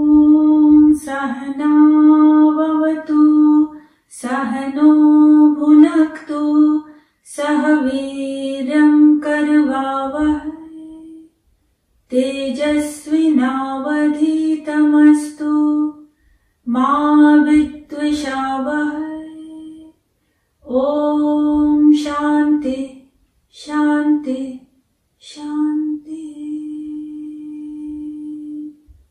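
A woman chanting a mantra unaccompanied, mostly on one steady pitch while the syllables change, in phrases of one to four seconds with short pauses for breath between them.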